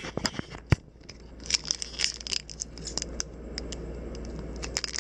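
Foil wrapper of a Pokémon trading-card booster pack crinkling and tearing as it is pulled open by hand, in clusters of sharp crackles. A single knock sounds a little under a second in.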